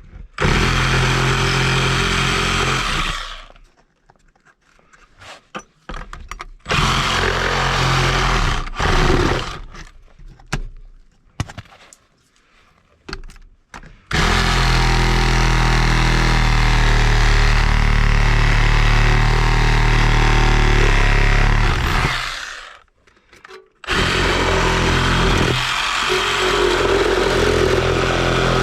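Reciprocating saw (Sawzall) running in bursts: about three seconds of cutting, then a stretch of short stop-start pulls, then a long steady run of about eight seconds, a stop of about two seconds, and running again near the end.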